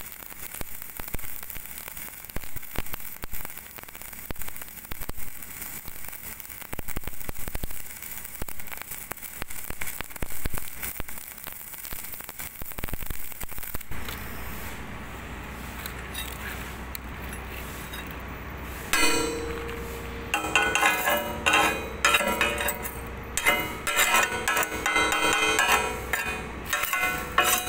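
MIG welding arc crackling and sizzling steadily as a bead is laid on steel plate, cutting off about halfway through. A few seconds later a hammer strikes the weld again and again to chip off the slag, each blow a sharp metallic clang with a ringing tone.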